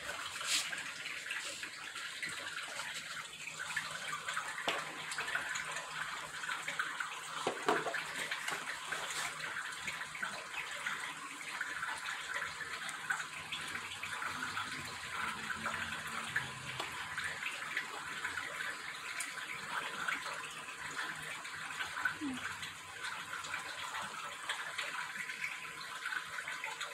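Steady rushing noise like running water, with a brief knock about eight seconds in.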